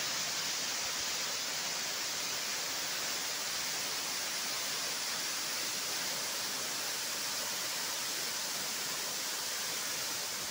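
Waterfall rushing steadily, a dense unbroken hiss of falling water.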